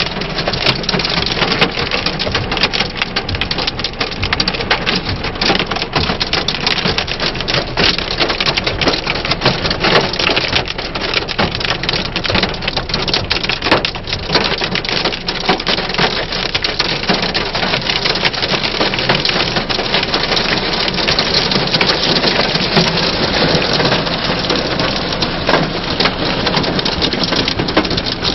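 Hail and heavy rain hitting a car's roof and glass, heard from inside the car: a loud, steady patter dotted with many sharp hailstone clicks.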